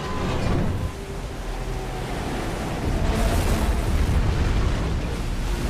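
Film soundtrack sound effects: a dense, low rumble of noise that swells about three seconds in.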